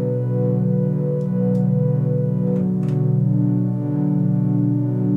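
Serum software synthesizer playing a Glitchedtones Swathes ambient pad preset: held chords that swell slowly, with a new note coming in about three and a half seconds in.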